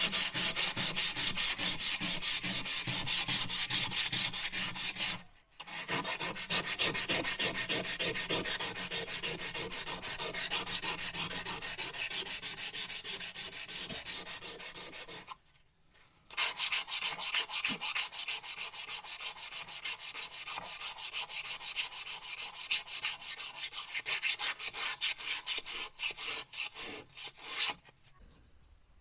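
A metal window frame being rubbed down by hand for painting, in quick, even back-and-forth scraping strokes. The strokes stop briefly twice and end just before the close.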